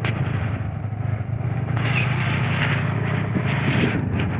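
A vehicle engine's steady low hum, with street noise over it.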